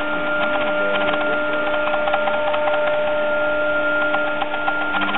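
ShopBot CNC router gantry jogging along its Y axis under its stepper motors: a steady whine of a few held tones, with a run of faint irregular ticks.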